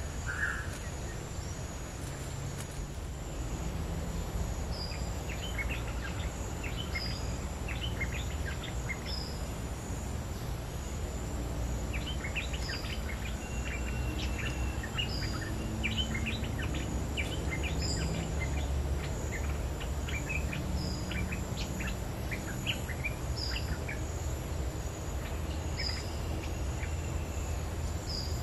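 Bulbul (merbah lekir) calling: scattered bursts of short, sharp chips, with a thin high note repeating about every two seconds and a steady low background rumble.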